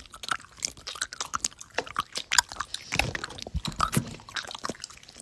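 Someone chewing crunchy food: rapid, irregular crunches.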